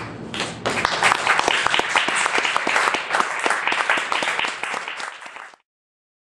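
Audience applauding, rising about half a second in and cutting off suddenly near the end.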